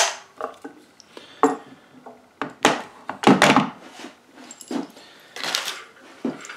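Wooden-stocked Lee-Enfield No. 4 rifle being handled and laid down on a wooden stool top: a string of irregular knocks and clunks of wood and metal, the loudest around the middle, with a longer scrape a little after five seconds.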